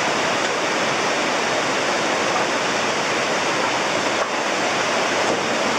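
Steady, loud rush of fast-flowing water, an even hiss with no breaks.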